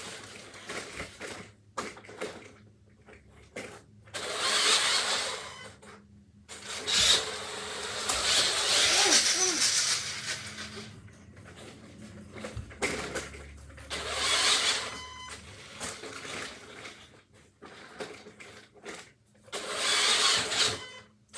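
Toy RC car's electric motor and wheels whirring at full throttle in four bursts, from about a second to several seconds long, with pauses and a few clicks and knocks between them.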